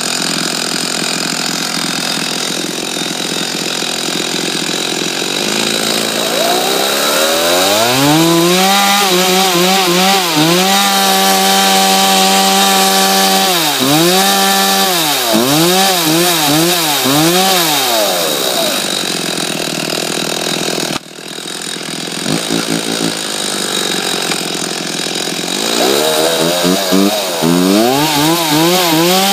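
Homelite 33cc two-stroke chainsaw idling, then revved up to full throttle and held for a few seconds, followed by a run of short throttle blips. After a sudden brief dip in the sound about two-thirds through, it is revved and blipped again near the end.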